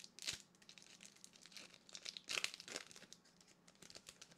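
Foil wrapper of a Pokémon booster pack crinkling and tearing as it is opened by hand, in short irregular spells, the loudest about two and a half seconds in.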